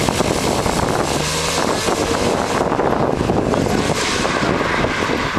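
Porsche 911 Cabriolet's flat-six engine running as the car drives past and away along an autocross course, with wind buffeting the microphone.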